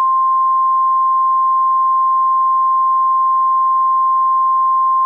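NOAA Weather Radio's 1050 Hz warning alarm tone: a single loud, steady tone over faint radio hiss, the signal that a severe weather warning message follows.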